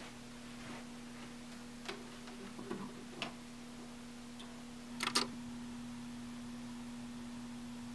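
Small clicks and knocks of a wooden tabletop record player being handled, with a louder double click about five seconds in, over a steady low hum.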